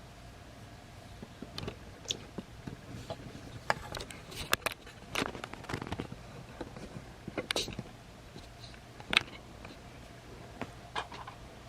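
Plastic clicks and snaps of a Transformers toy's joints and parts being moved and pegged together by hand, irregular and light, busiest in the middle with one sharper click about nine seconds in.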